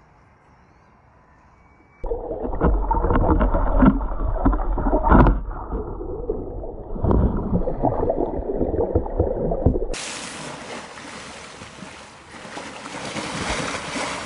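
Water sloshing and gurgling around swimming elephants, heard muffled as if through an underwater camera, with many knocks and bubbling, starting suddenly about two seconds in. About ten seconds in it switches abruptly to a brighter, hissing rush and splash of water at the surface.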